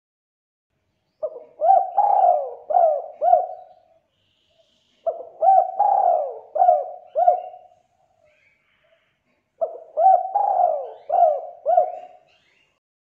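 Spotted dove (tekukur) cooing: three phrases of about five coos each, a couple of seconds apart, each coo dipping in pitch.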